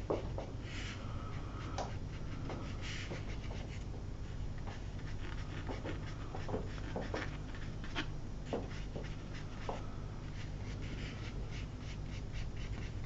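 Faint scratching strokes and light ticks of a flat watercolour brush working on paper, over a steady low hum.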